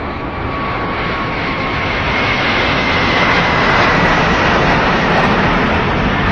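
Embraer 190 jetliner's twin General Electric CF34 turbofan engines passing low overhead on landing approach, gear down. A loud rushing jet noise builds to a peak about four seconds in, with a high engine whine that slides slightly lower in pitch as the jet goes by.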